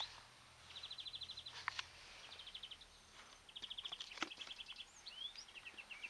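A small songbird trilling in short, rapid bouts again and again, with a few quick rising chirps in between. Two sharp clicks sound, one about a second and a half in and one about four seconds in.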